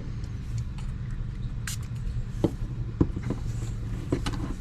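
A few small sharp clicks and taps from handling and fitting small plastic pieces of a figure during gluing, over a steady low hum.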